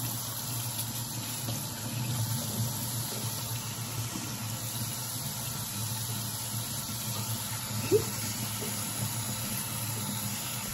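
Kitchen faucet running steadily into a sink of soapy water, with one short sharp sound about eight seconds in.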